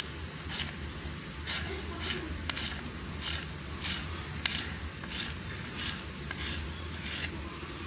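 Broad bean pods being cut with a blade: a crisp slicing stroke about every half second, eleven or twelve in all, stopping about seven seconds in.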